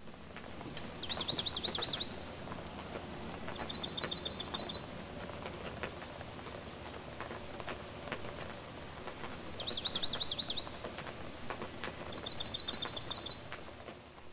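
A songbird singing, repeating one two-part song twice. Each song opens with a short whistle and a quick run of sweeping notes, and a few seconds later comes a rapid, even trill of about nine notes. A steady background hiss with scattered light ticks runs underneath.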